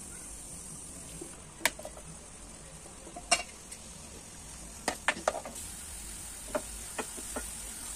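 Sliced onions sizzling as they fry in hot oil in a nonstick pan, a steady high hiss, with a utensil knocking and scraping against the pan several times.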